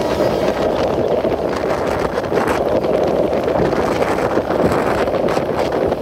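Titas Commuter train running, a steady loud rumble with frequent faint clicks from the wheels, and wind buffeting the microphone.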